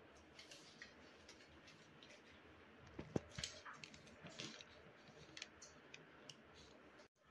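Mostly near silence, broken by faint clicks and light taps of hands working at the plastic fittings on the underside of a wall-mounted electric water heater, with a few sharper clicks near the middle.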